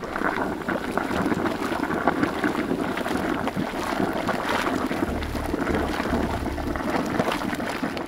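Hot-spring vent boiling hard, a continuous dense crackling churn of bubbling and splashing water. Wind rumble on the microphone joins about five seconds in.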